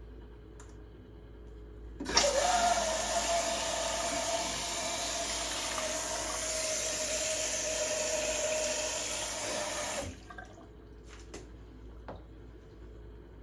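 Newly fitted water tap turned on, running water into a sink for about eight seconds with a faint steady tone in the flow, then shut off abruptly.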